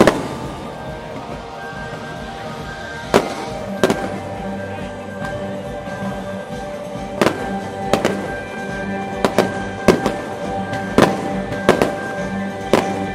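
Aerial fireworks shells bursting: about a dozen sharp bangs at irregular intervals, some in quick pairs, over music playing throughout.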